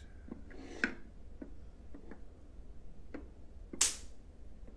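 Faint handling noise: a few light clicks and taps as a wooden toy ark is lifted and moved in the hands, and one short, sharp hiss nearly four seconds in.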